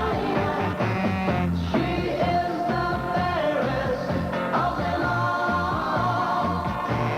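A 1960s-era rock and roll record playing, with a steady beat and held sung or played notes.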